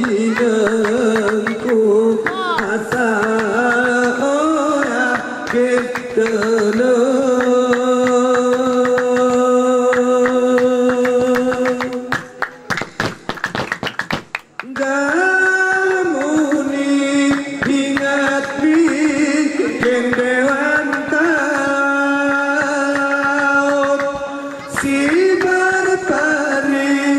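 Didong Gayo performance: men singing long, held notes in the Gayo style over a steady patter of hand-claps. About twelve seconds in, the voices stop for two or three seconds of fast clapping alone, then the singing resumes.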